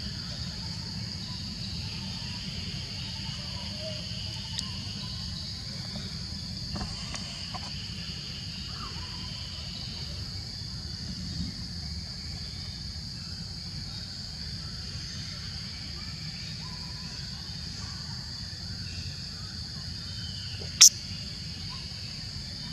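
Steady insect drone, crickets or similar, with a low rumble underneath, and one sharp loud click near the end.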